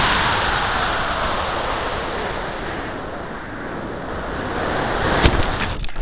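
Air rushing over the microphone of a camera riding on a model rocket in flight: a loud, even rush that dies down over the first few seconds and builds again, then a single sharp crack about five seconds in.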